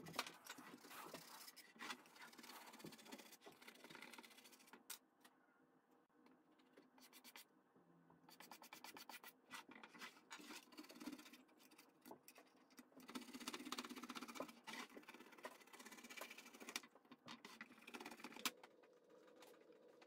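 A hand scraper rasping glued paper backing off the back of a wooden picture frame in quiet, repeated scraping strokes. The strokes thin out for a few seconds midway and stop shortly before the end.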